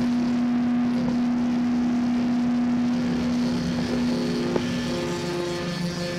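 Electric guitar noise drone: several steady tones held together over a hiss, one strong middle tone cutting out near the end just after a single click. Heard from inside a toilet stall.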